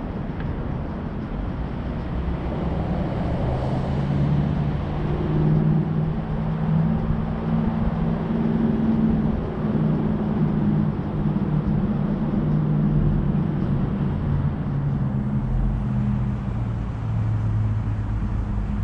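Vehicle engine running while driving slowly, its pitch rising and falling a little with the throttle and dropping lower near the end, over road and wind noise.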